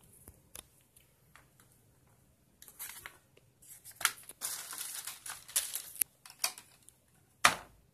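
Clear plastic bag crinkling and rustling in irregular bursts as it is handled over a computer keyboard, after a few light clicks of handling, with one louder knock just before the end.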